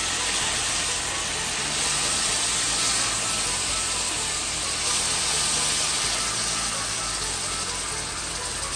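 Loud, steady sizzling hiss of coconut milk poured into a very hot frying pan, boiling up on contact and throwing off steam. Background music with a slow bass line plays underneath.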